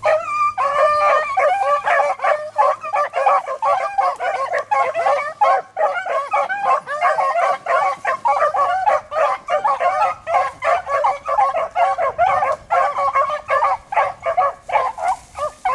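A pack of beagles baying on a rabbit's scent trail, many voices overlapping without a break, with yips mixed in.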